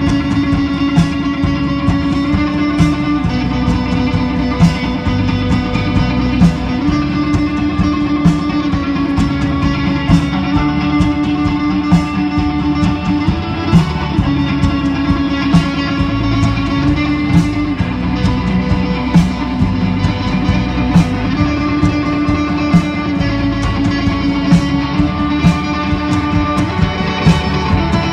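Instrumental music with held notes changing every few seconds over a steady beat.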